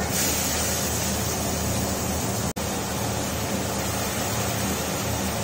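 Kitchen chimney (range hood) fan running: a steady hum with an airy rush, broken by a brief dropout about two and a half seconds in.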